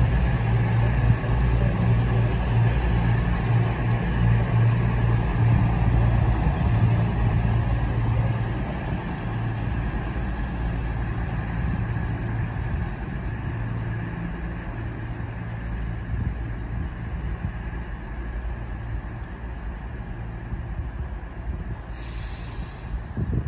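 Underfloor diesel engines of a CrossCountry Voyager multiple unit running as the train moves along the platform: a steady low drone that slowly fades. A brief hiss of released air comes near the end.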